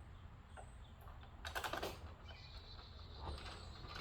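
Small clicks and rattles of a lock screw being fitted into the bottom rail of a ReCover P-IX pistol chassis, in a cluster about one and a half seconds in and a few fainter ticks later, over a low hum.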